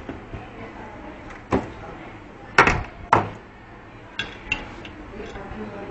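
Several sharp knocks of hard objects against a hard surface. The two loudest come about half a second apart near the middle, followed by a few lighter clicks.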